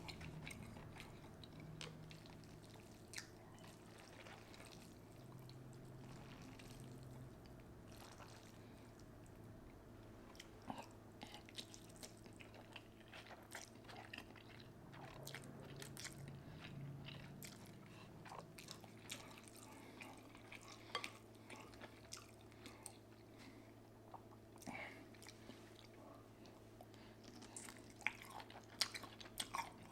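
A person chewing food quietly, close to the microphone, with scattered small wet clicks and smacks of the mouth.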